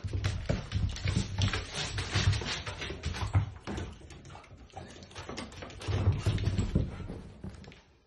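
Dogs romping on a hardwood floor and rugs: a fast scramble of paws, scuffs and thuds, in two spells with a quieter stretch between.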